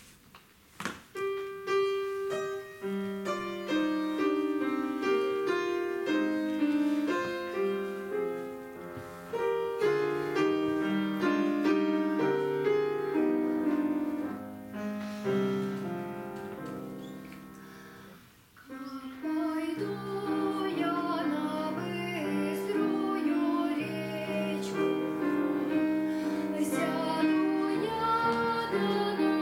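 Grand piano playing a solo introduction for about seventeen seconds. After a brief pause, a girl's solo singing voice comes in with the piano accompanying her.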